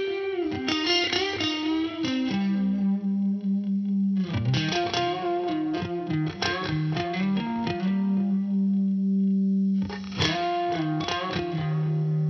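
Background music with a distorted electric guitar playing picked lines over long held low notes.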